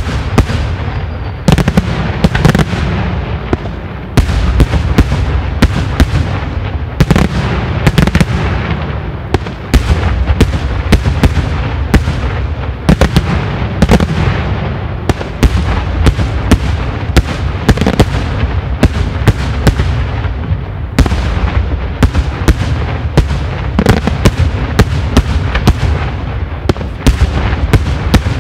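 Daytime fireworks barrage: shells bursting high in the air in rapid, irregular succession, several loud bangs a second over a continuous low rumble.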